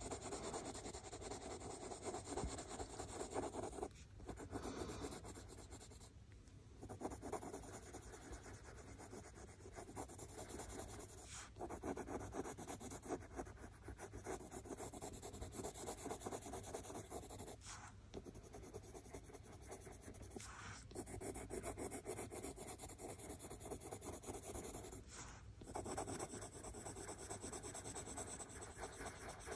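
Faint scratching of a Prismacolor coloured pencil on cartridge paper in many small, rapid strokes, as yellow is blended over earlier layers of colour. There are a few brief pauses where the pencil lifts.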